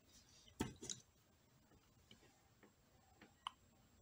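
Faint clicks and taps from handling the metal and plastic parts of a Pentacon 29mm camera lens: two knocks about half a second to a second in, then a few light ticks, one near the end with a short metallic ring.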